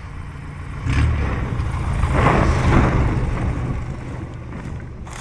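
Light single-engine taildragger bush plane landing and passing close by: its engine and propeller hum swells sharply about a second in, is loudest around two to three seconds in as the plane goes by on touchdown, then fades as it rolls away.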